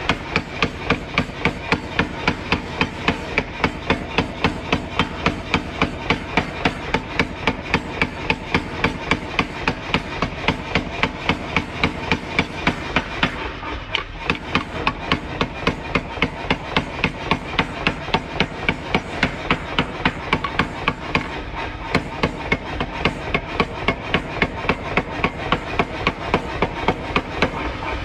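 Power hammer's ram pounding a red-hot steel knife blank on the anvil die in a steady run of blows, about two to three a second, with a brief let-up about halfway through.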